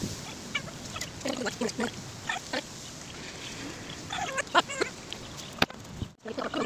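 Short animal calls in clusters, about a second in and again around four seconds in, with a single sharp knock shortly before the end.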